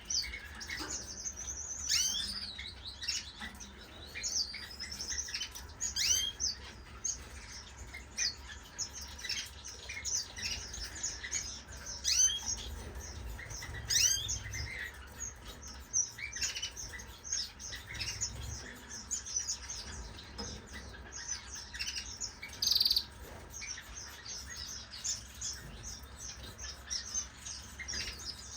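Many small cage birds, finches and canaries, chirping together: a steady overlapping chatter of short, high call notes, many of them sweeping downward. About three-quarters of the way through comes one brief, louder, harsh rasp.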